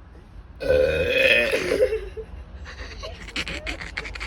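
A loud, drawn-out belch from a boy, starting about half a second in and lasting about a second and a half. It is followed by a run of short, choppy sounds.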